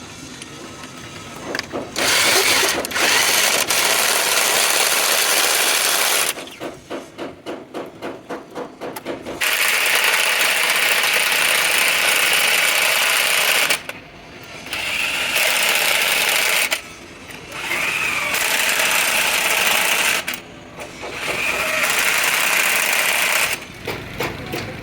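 A power tool working metal in long loud bursts of several seconds, stopping briefly between them, with a few seconds of fast, even chattering pulses after the first burst.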